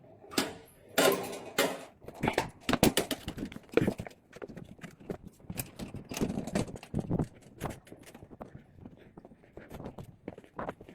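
Footsteps on a hard floor with irregular knocks and clatter of things being handled.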